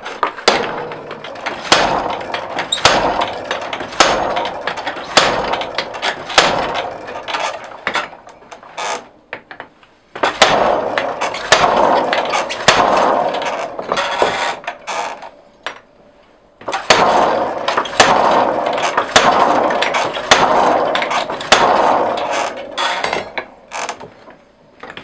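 Hammer blows on steel being forged, about one a second, with a mechanical clatter between strikes; the hammering pauses briefly twice.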